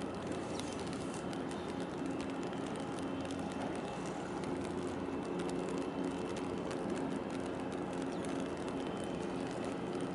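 Steady mechanical drone of a large container ship under way, with a faint low hum from its engines and machinery.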